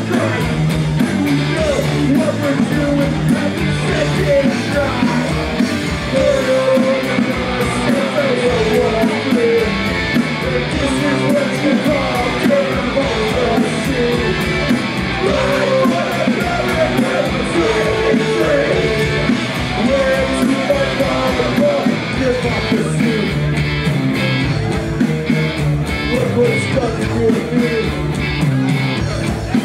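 Punk rock band playing live, loud and continuous: distorted electric guitars, bass and driving drums, with a singer's voice on top.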